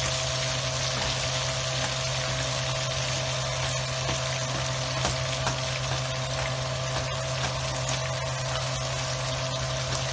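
Ground beef and onions sizzling steadily in grease in a nonstick frying pan, with light scrapes and ticks as a plastic spatula stirs them. A steady low hum runs underneath.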